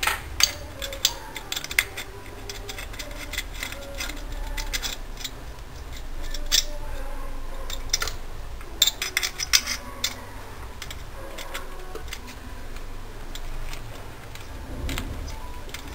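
Sharp metallic clicks and ticks, some in quick runs, of a wrench working loose the cylinder head nuts on a 66cc two-stroke bicycle engine.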